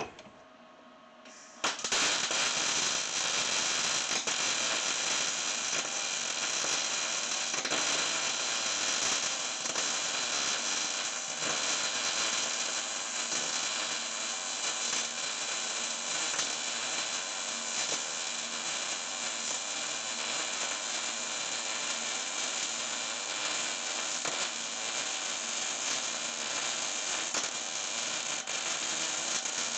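Electric welding arc crackling and sizzling steadily as a bolt is welded up, starting abruptly about two seconds in.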